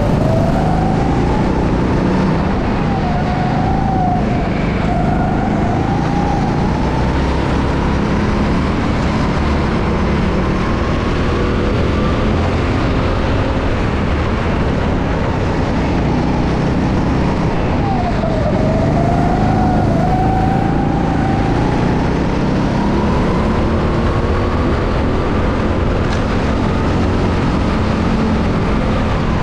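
Go-kart running at speed, its pitch climbing and falling with speed. It drops sharply twice, briefly about 3 to 5 seconds in and again about 18 seconds in, then rises again. Steady rushing noise underneath.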